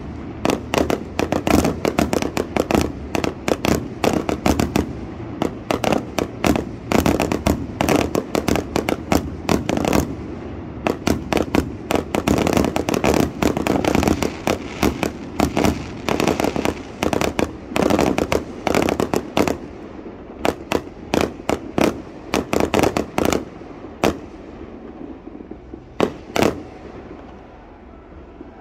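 Aerial fireworks display: a rapid barrage of shell bursts and crackling reports, many bangs a second. Near the end it thins out to a few scattered bangs.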